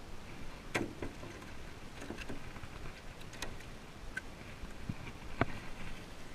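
Irregular sharp clicks and taps from handling fishing tackle in a small boat, about seven in all, the loudest about a second in and near the end, over a steady background hiss.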